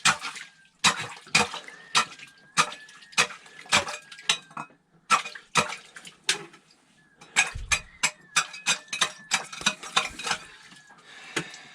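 Hatchet chopping open a frozen-over ice fishing hole: a run of sharp strikes on ice with chips clinking, about one to two a second, coming faster in the second half.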